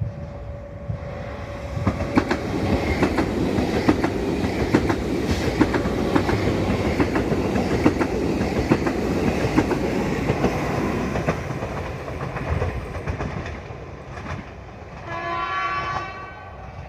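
A train passes over the level crossing, wheels clicking rapidly over the rail joints and crossing, then fades away. Near the end, a horn sounds once, briefly.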